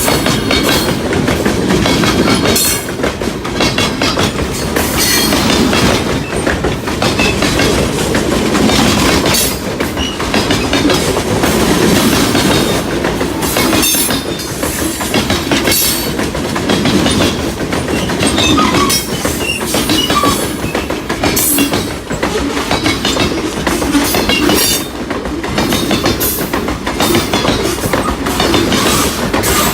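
Railway cars rolling past at speed, a steady loud rumble with the wheels clicking and clattering over the rail joints.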